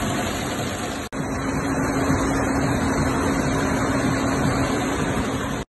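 Narrow-fabric weaving looms running, a loud, steady, dense mechanical clatter. It breaks off for an instant about a second in, then resumes with a steady hum added.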